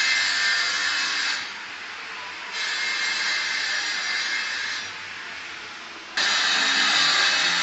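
A power tool running in spells on a building site, giving a harsh hiss. It drops away about a second and a half in, comes back weaker, then returns suddenly at full strength about six seconds in.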